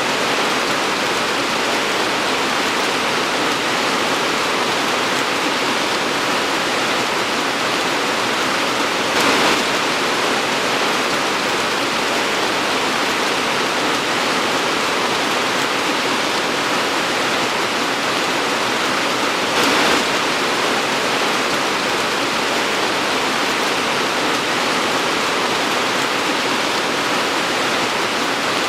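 Torrential rain pouring steadily as a dense, even hiss, swelling briefly louder twice, about a third and two thirds of the way through.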